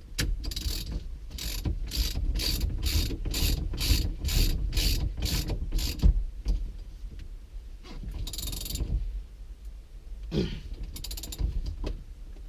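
Ratchet wrench tightening the steering-wheel hub nut onto the steering column, in a quick run of ratcheting strokes, about three a second for several seconds, then two short bursts later on.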